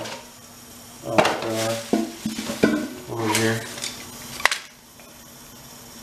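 Hard plastic toilet fill valve parts clicking and knocking as they are handled, a few sharp clicks, the loudest near the end, with brief mumbling between them.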